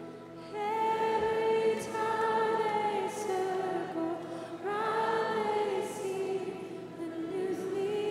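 Women's voices singing a slow worship chorus together in long held notes, phrases of a few seconds each, with a steady held chord sounding underneath.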